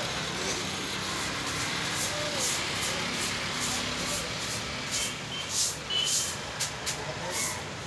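Steady street traffic noise, with a run of short scraping strokes from a butcher's knife cutting along a hanging side of beef ribs; the strokes come faster and louder from about five seconds in.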